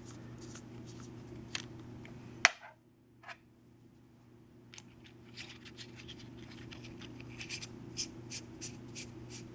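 Small clicks and scratching as a metal keychain flashlight is handled and its threaded parts are unscrewed and screwed together, with one sharp click about two and a half seconds in. A steady low hum lies underneath.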